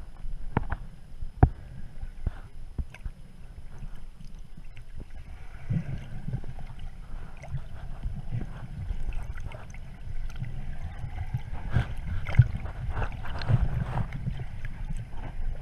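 Underwater sound heard through a camera's waterproof housing: a muffled low rumble of moving water with scattered clicks and knocks, and a swishing hiss in the second half. A faint steady high whine runs underneath.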